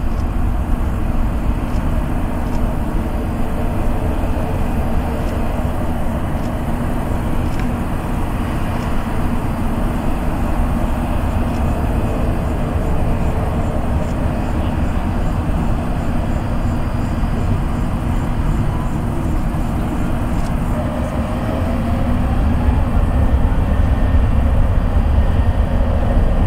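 Jet airliner engines at takeoff power during the climb-out, a steady loud roar that swells again near the end.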